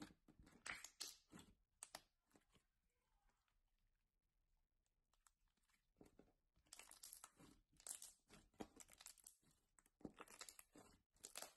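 Soft white slime pressed and kneaded by hand: faint clusters of small crackling clicks and squishes. There is a lull in the middle, then denser crackling over the last few seconds.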